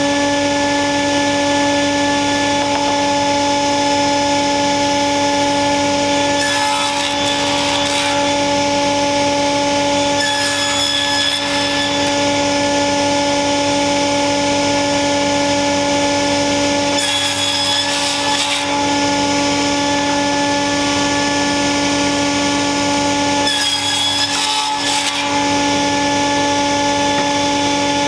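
Table saw running at full speed with a steady whine, crosscutting glued-up wood strips on a sled four times, each cut lasting about a second and a half.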